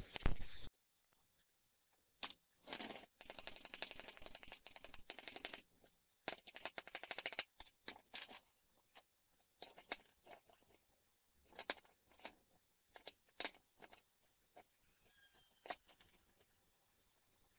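Stick welding arc crackling, cutting off sharply under a second in. Then a steel jig with bolted roller bearings is handled on a steel bench: metal clinks, two stretches of jingling rattle, and scattered knocks.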